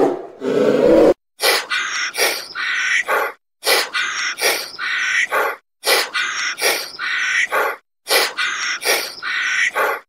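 A short animal-call sound effect, the same clip repeated four times about every two seconds. Before it, the end of a deep roar fills the first second.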